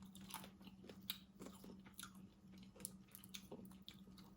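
Faint chewing of crab and shrimp from a seafood boil, with scattered small clicks and crackles, over a low steady hum.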